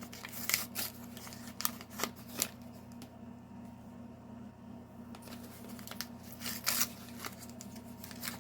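Toy packaging being handled and torn open: irregular crinkles, rustles and clicks, with a lull of about two seconds in the middle, over a faint steady hum.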